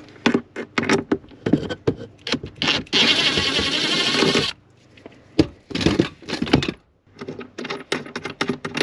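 Clicks, knocks and rattles of things being handled, with a steady rasping noise lasting about a second and a half in the middle.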